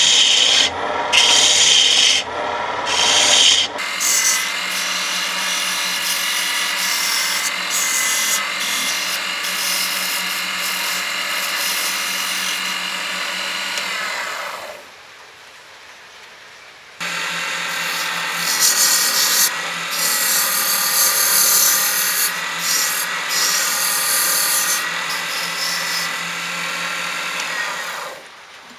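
Wood lathe running while a turning tool scrapes the spinning hardwood: a few short cutting passes in the first seconds, then long steady scraping with a whine from the spinning work, broken by a quieter lull of about two seconds midway.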